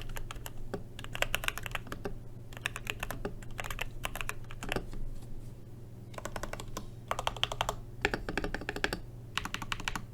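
LK67 (TM680) mechanical keyboard with Gateron Phantom Red linear switches, modded with foam and tape, being typed on in quick runs of keystrokes with short pauses between them.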